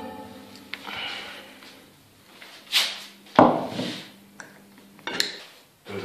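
Frying pan being handled, knocking and scraping, with a loud knock a little past halfway and another near the end as it is set down on a wooden board. A steady low hum underneath stops at the loud knock.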